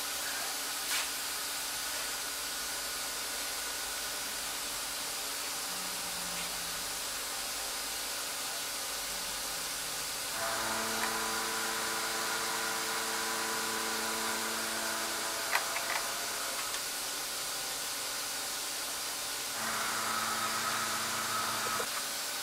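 CNC machine running while it machines rotary table alignment pins: a steady hiss with a faint hum, joined by a whine of several steady tones for about five seconds around the middle and again near the end.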